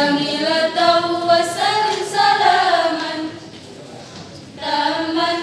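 Women's choir singing in harmony, with several voice parts moving together; the singing drops away about three seconds in and comes back with a held chord near the end.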